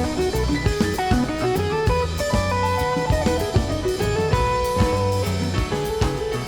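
Rock music with electric guitar and a drum kit.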